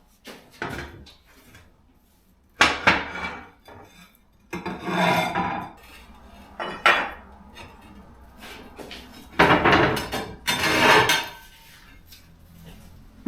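Clanking and clattering as parts of an old wood-burning oven are handled during dismantling: several separate sharp knocks, with longer rattling, scraping clatters about five seconds in and again about ten seconds in.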